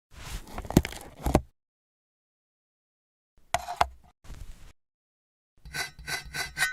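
Short, separate bursts of rustling, scraping noise with sharp clicks, each cut off into dead silence, then a quick run of about six light clicks with a faint ringing tone near the end.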